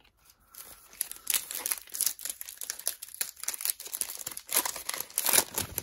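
Crisp rustling and crinkling of a stack of Panini Prizm trading cards being handled and shuffled, many quick scratchy clicks that grow loudest near the end.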